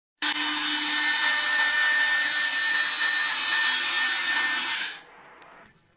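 HiKOKI CV18DA cordless brushless oscillating multi-tool running with no blade fitted: a loud, steady high buzz with a thin whine through it, stopping about five seconds in and fading out briefly.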